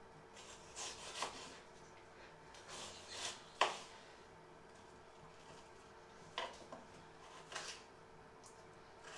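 Kitchen knife slicing an onion on a wooden cutting board: irregular crisp cuts and scrapes, with one sharper knock of the blade on the board about three and a half seconds in.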